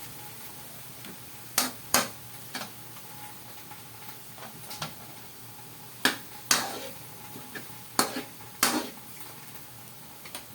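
A stirring utensil knocking and scraping against a cooking pan, about eight sharp knocks in irregular pairs, over a steady low sizzle of the simmering meat mixture.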